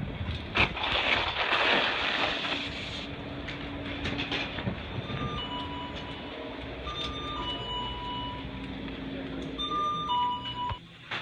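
Background music with a few long held notes, over a rush of wind noise that is strongest in the first few seconds; the sound cuts off suddenly near the end.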